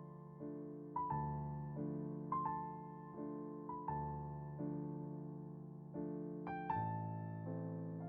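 Slow, soft solo piano music: sustained chords with a gentle melody note struck every second or so, each fading away.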